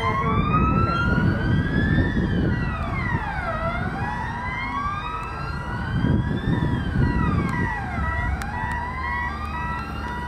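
Fire engine wail siren, its pitch sweeping slowly up and dropping back more quickly, about once every four and a half seconds, over a low rumble of engine and road noise.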